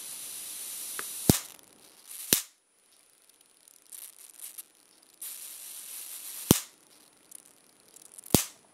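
Small high-voltage generator module sparking across the gap between its two twisted output wires: a high hiss broken by four sharp spark snaps, two about a second apart early on and two more near the end.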